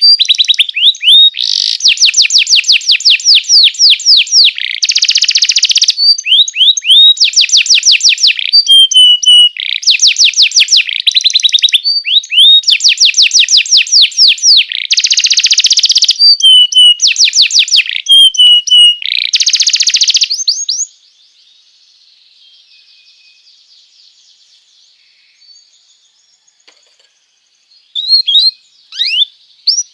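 Domestic canary singing loudly in phrases of rapidly repeated notes and trills, one phrase after another. The song stops about two-thirds of the way through, leaving faint hiss, and a few short chirps come near the end.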